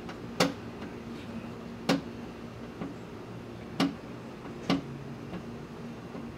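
Four sharp knocks and clicks, spaced irregularly, from hardware being handled inside a pickup truck's door shell as the loosened window regulator is held and worked free.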